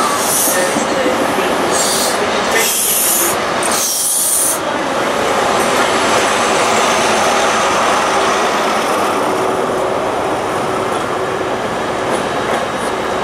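LNER High Speed Train pulling out, its coaches rolling past with short bursts of high-pitched wheel squeal over the first four seconds or so. Then the trailing Class 43 diesel power car runs steadily past and draws away.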